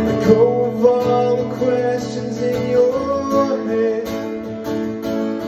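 Acoustic guitar strummed with a man singing over it in a live solo performance of a song.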